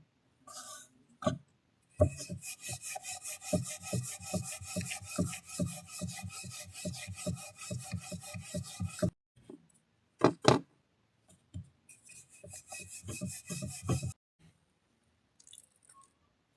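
Rhythmic back-and-forth scraping in food preparation, about four strokes a second, in two runs with two sharp knocks between them.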